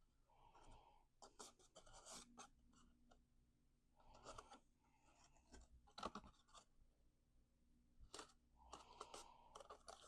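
Faint rustling, scraping and light tapping of cardstock being handled and pressed together as it is glued, in scattered short bursts.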